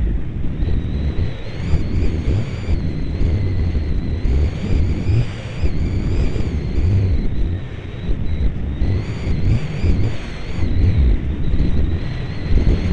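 Heavy wind buffeting on the microphone of a camera carried on a flying model aircraft, with the model's motor whining high above the rumble, its pitch wavering up and down.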